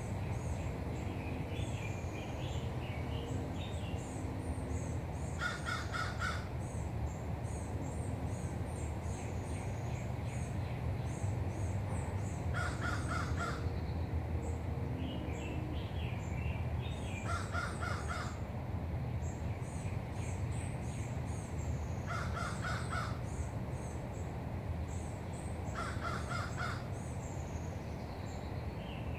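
A bird calling in five short bursts of rapid harsh notes, about every four to five seconds, while smaller birds chirp high-pitched throughout over a steady low background noise.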